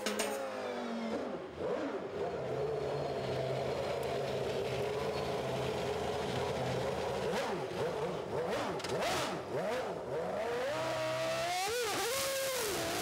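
Renault V10 engine of a Williams FW16 Formula One car running steadily at low revs. From about seven seconds in it is blipped several times, and it revs sharply up and down as the car pulls away near the end.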